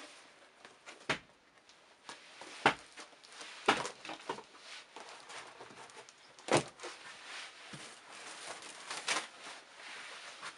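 Used shoes being handled and set down on a heap of shoes: several sharp knocks as they are put down and picked up, the loudest about two and a half and six and a half seconds in, with soft rustling between.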